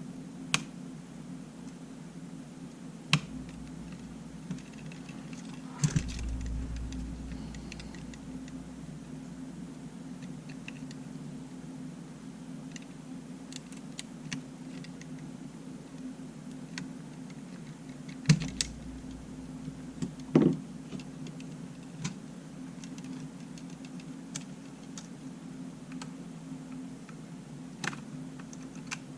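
Scattered small clicks and taps of hand tools and small parts being handled during disassembly of a Sony A7 camera, over a steady low hum.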